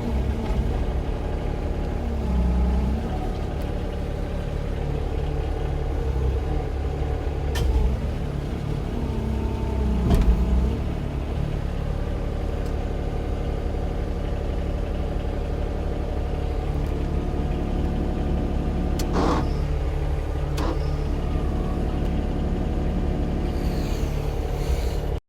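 Yanmar SV18 mini excavator's diesel engine running steadily, the note swelling briefly twice as the hydraulics take load. A few sharp metallic clanks, from about a third of the way in to near the end.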